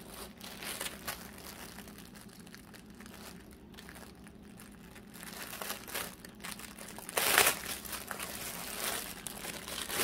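Clear plastic packaging crinkling as it is handled and opened by hand, in irregular rustles, with a louder burst of crinkling about seven seconds in.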